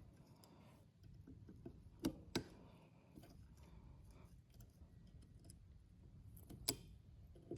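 A few sharp metal clicks and taps, faint, with long gaps between them, as a cotter pin on a front axle bolt is bent with a hand tool.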